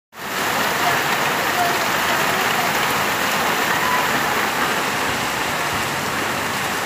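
Heavy rain pouring steadily onto a wet street, a dense, even hiss.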